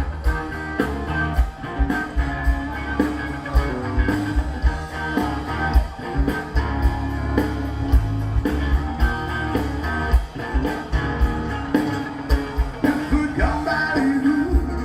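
Rock and roll song with guitar, bass and drums keeping a steady beat, and a singing voice.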